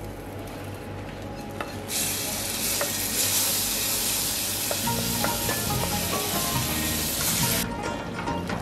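Hot butter fried with garlic and dried mint poured into a pot of simmering lentil soup, sizzling loudly from about two seconds in until near the end. A wooden spoon stirs it in.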